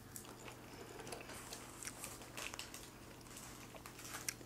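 Faint close-miked chewing of fast food, a run of small clicks and crackles, with a sharper click near the end.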